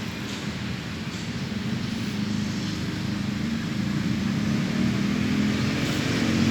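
Toy airplane's motor droning in flight, growing steadily louder and rising slightly in pitch toward the end as it comes closer.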